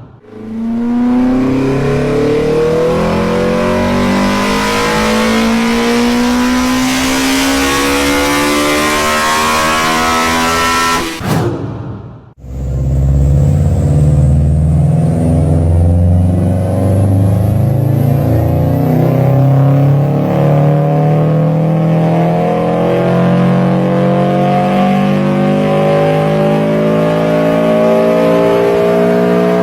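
Car engines accelerating: two separate engine recordings, each with a pitch that rises steadily as the revs climb, with a brief break about twelve seconds in.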